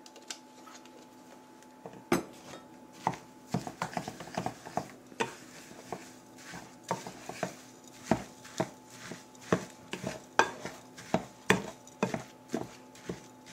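A black utensil knocking and scraping against a yellow mixing bowl while stirring and mashing a thick mixture of bananas and oats. The knocks start about two seconds in and come irregularly, roughly two a second.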